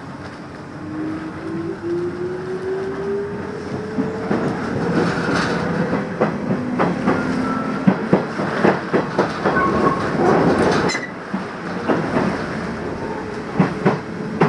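Electric train heard from inside a passenger car as it pulls away and accelerates: a motor whine rises steadily in pitch over the first several seconds, then the wheels click over rail joints with growing loudness.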